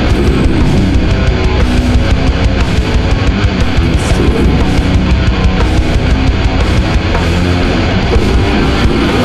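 Death-doom metal music: distorted electric guitars and a drum kit playing loud and unbroken.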